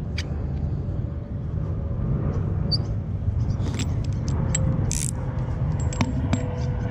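A few sharp metallic clicks and short scrapes as the steel die and stud of a Greenlee knockout punch are handled, the loudest about five seconds in, over a steady low rumble.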